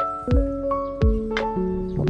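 Background music with a steady beat: held keyboard chords that change every half second or so over regular low drum hits.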